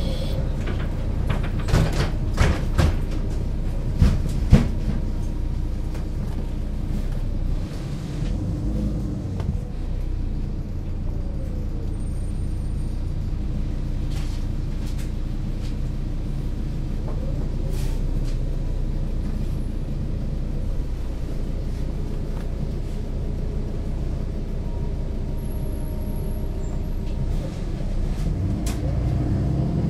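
MAN NL 283 Lion's City city bus on the move, its six-cylinder diesel running steadily with a deep rumble. Several sharp rattles and knocks come in the first few seconds. The engine note grows louder near the end.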